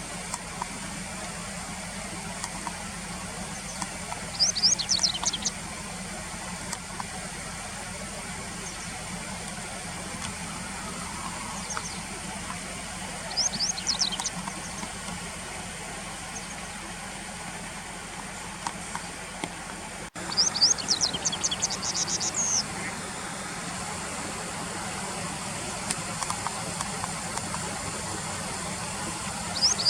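Japanese wagtail calling in short runs of sharp, high, quick notes: about four seconds in, again around thirteen seconds, a longer run just after twenty seconds, and once more at the end. A steady low hum runs underneath.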